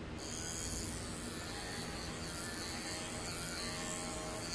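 Cordless pet grooming clipper with a guide comb running in a steady electric hum as it is run through a dog's coat. A brighter buzz sets in just after the start and holds.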